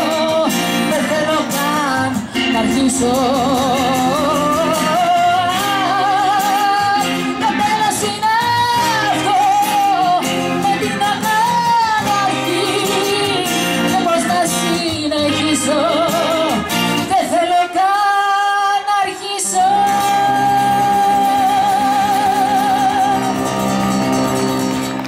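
A woman sings a Greek ballad live, with acoustic guitar and keyboard accompaniment. Her voice carries long held notes with vibrato. About eighteen seconds in the accompaniment drops away for a moment, and then she holds one long note with vibrato.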